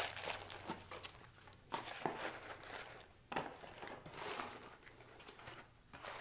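Plastic bags holding Ethernet cables crinkling and rustling in short, irregular bursts as they are pushed down into a cardboard box.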